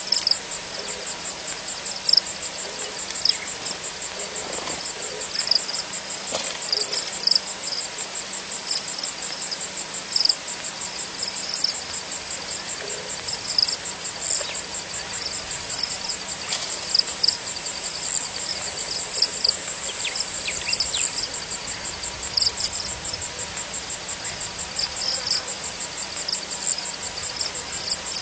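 Crickets trilling steadily in a fast, high pulse, with scattered short, higher chirps from other insects over a faint hiss.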